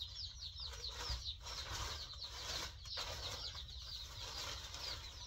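A brooder full of day-old chicks peeping without pause, many short high chirps overlapping. Underneath is the rustle of a plastic tarp being spread over the box.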